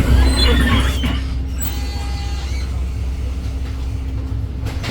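Cabin sound of a 2021 Edison Motors Smart 110G city bus under way, its CNG engine (GX12P) and road noise giving a deep steady rumble with a steady hum. A rattle in the first second and a short knock near the end.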